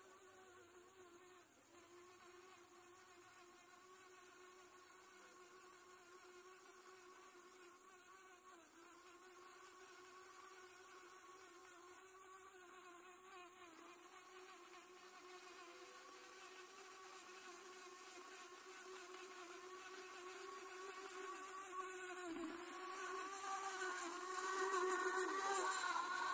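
Small electric motors of a homemade remote-controlled helmet robot whining as it drives, growing steadily louder as it comes closer; the pitch wavers slightly.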